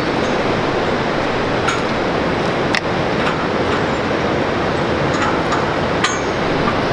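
Steady rush of flowing river water, with a few sharp clinks as the lead-weighted cast net is gathered and thrown.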